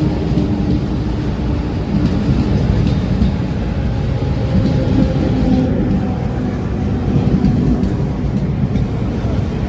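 Suburban electric train running: a steady, loud rumble with a faint humming tone over it.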